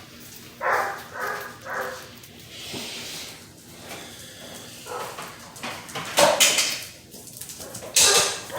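Basset hound puppies yipping: three short, high yips about a second in, with louder noisy bursts later.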